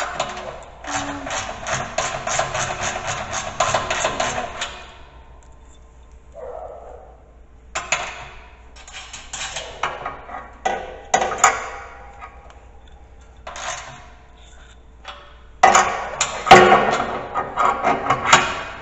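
Metal parts and hand tools being worked on a plow mount. A quick run of clicks, about four or five a second, lasts some four seconds. Scattered clanks and knocks follow, then a louder clatter of metal near the end.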